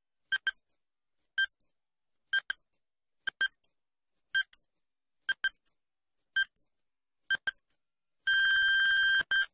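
Quiz countdown-timer sound effect: short electronic beeps about once a second, single and paired in turn, while the answer time runs down. Near the end a long beep of about a second, then one short beep, signals that time is up.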